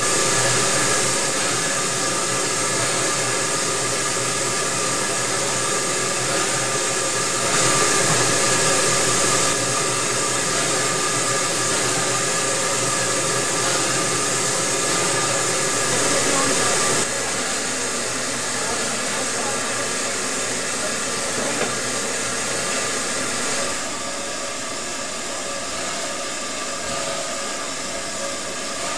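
Steady hiss of steam from a standing steam locomotive, ex-Pennsylvania Railroad 643, with a few steady tones under it. It steps louder or softer a few times.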